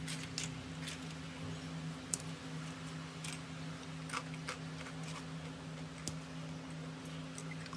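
Crisp fried cornmeal nacho chips clicking and crackling now and then as a hand lifts and shifts them on a plate, a few scattered sharp ticks over a steady low hum.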